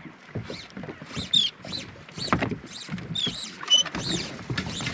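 A flock of seabirds working over a kahawai school, giving high, squeaky calls that rise and fall, about two a second, with low knocks underneath.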